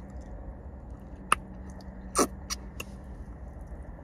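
A person eating close to the microphone: chewing with a few short crisp crunches or mouth clicks, the loudest about two seconds in, over a low steady hum.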